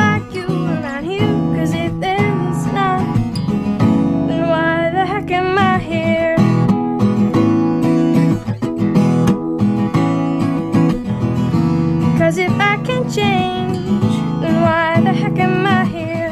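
A live solo song: a woman sings with vibrato over a steadily strummed acoustic string instrument.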